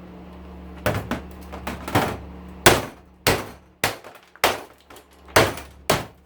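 Hammer blows on a small electric motor's housing as it is beaten apart for scrap: about ten sharp strikes at an uneven pace, each with a short metallic ring.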